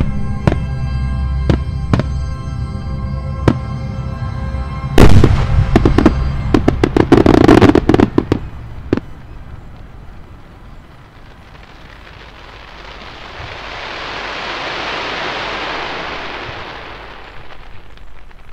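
Background music, then a large aerial firework shell bursting with a loud bang about five seconds in, followed by several seconds of sharp crackling. Afterwards a long wash of noise swells and fades.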